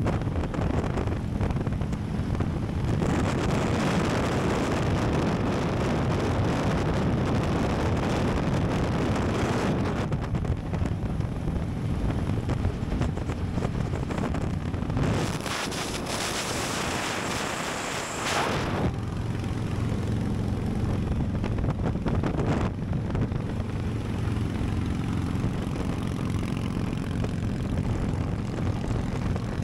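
Harley-Davidson V-twin motorcycle engines running steadily at highway speed, heard from a camera on the bike, with heavy wind noise on the microphone. For a few seconds just past the middle, the engine's low note drops away and the wind hiss takes over.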